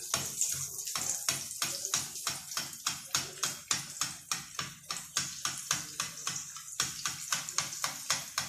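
Rghaif dough frying in a pan of hot oil, sizzling and crackling with quick pops about five times a second. Hot oil is being spooned over the rounds to make them puff up.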